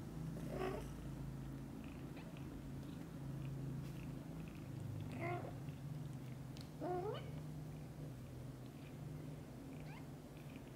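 A tiny newborn kitten mewing several times in short, high calls, the clearest about five and seven seconds in, one of them rising in pitch. Underneath runs a steady low purr from the mother cat grooming it.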